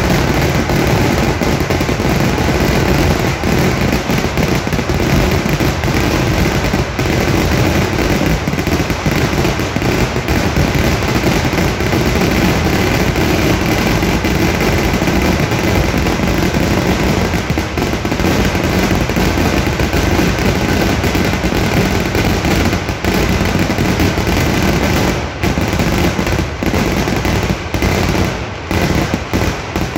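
Kerala temple-festival fireworks (vedikettu): a dense, unbroken barrage of firecracker blasts with aerial shells bursting overhead. Near the end the blasts thin a little, with brief gaps.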